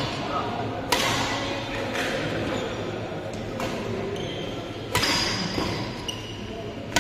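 Badminton racket strikes on a shuttlecock in a reverberant hall: two sharp hits, about one second in and about five seconds in, each ringing briefly, over a steady background of hall noise.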